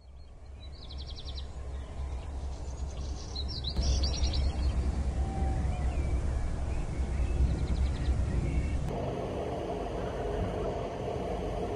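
Outdoor ambience fading in: a steady low rumble with birds chirping, in short bursts during the first few seconds and again later. The background changes abruptly about four seconds in and again about nine seconds in, where a steady higher hum joins.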